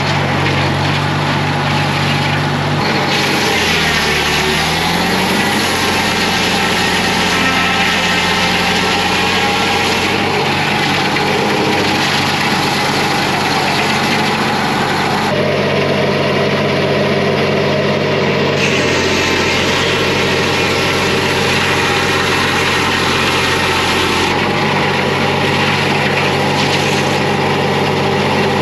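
Homemade bandsaw sawmill running, its motor humming steadily under a broad hiss. The motor's pitch sags and recovers about four seconds in, as if under load.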